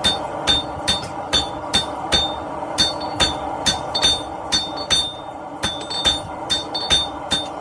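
Hammer blows on hot steel on an anvil, about two sharp ringing strikes a second: the smith's hand hammer and the striker's sledgehammer working together, drawing down 1-inch round stock.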